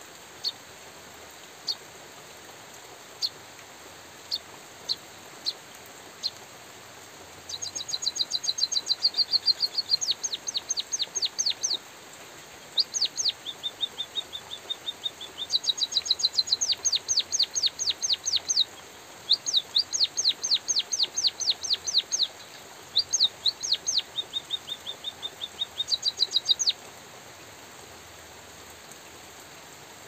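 White-headed munia singing. A few single high chirps come first; from about seven seconds in, long runs of rapid high notes follow with short pauses, over a steady hiss of light drizzle.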